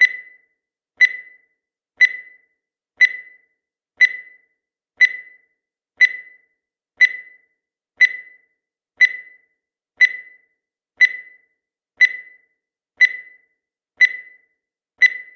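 Countdown timer sound effect: a short, sharp tick once every second, each ringing briefly at a single high pitch.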